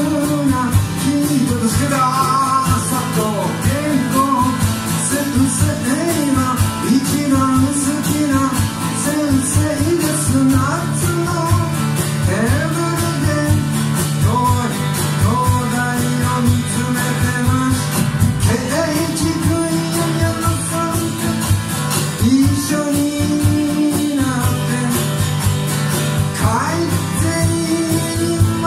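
Live band: a man singing a melody over a strummed acoustic guitar, with a drum kit and hand percussion keeping a steady beat.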